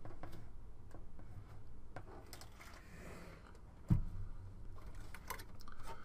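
Handling noise from a steel desktop computer case being lifted, tilted and moved: scattered light clicks and rattles, with one dull thump about four seconds in.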